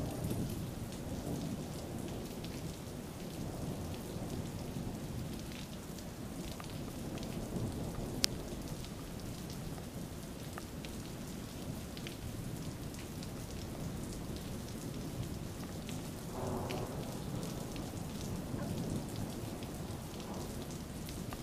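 Thunder rumbling on with no break between claps, over steady rain pattering. One sharp tick stands out about eight seconds in.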